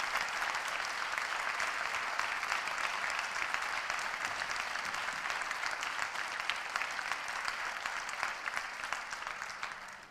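Theatre audience applauding steadily, easing off a little near the end.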